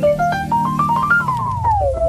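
Background music: a quick run of notes climbing in steps, then stepping back down over the second half, landing on a held chord near the end.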